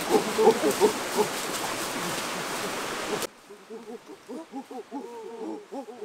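A rapid, overlapping chorus of short rising-and-falling animal calls, under a steady hiss that cuts off abruptly a little past halfway; the calls then go on more faintly.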